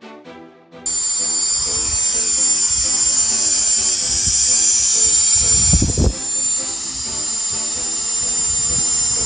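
Hubsan H216A X4 Desire Pro quadcopter's motors and propellers whining at a steady high pitch, starting abruptly about a second in. Wind rumbles on the microphone, with a strong gust about six seconds in. Quiet music plays underneath.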